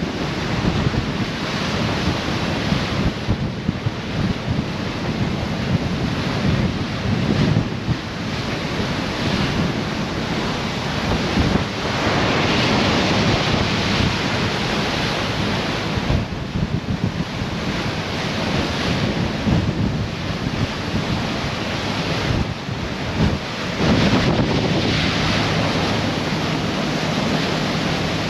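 Wind buffeting the microphone over the rush of water along the bow of the Garinko icebreaker, the noise surging and easing in gusts. A low steady hum runs underneath.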